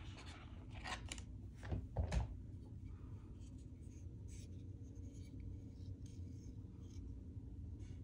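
A LOOK Blade clipless road pedal set down on a paper-covered kitchen scale, with a few knocks and clicks in the first couple of seconds, the loudest about two seconds in. Then faint ticks and rubbing as the pedal is handled and turned in the fingers.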